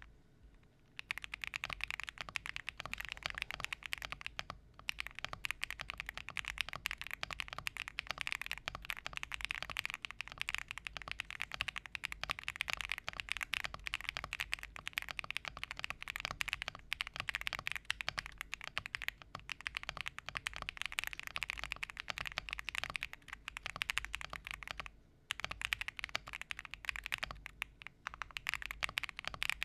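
Fast, continuous typing on a mechanical keyboard with Akko Cream Yellow V3 Pro linear switches in an Akko MOD007 PC board: rapid key strokes and bottom-outs. The typing starts about a second in and pauses briefly twice.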